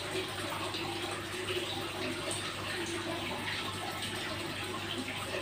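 Steady, continuous splashing of running water from a small garden water feature.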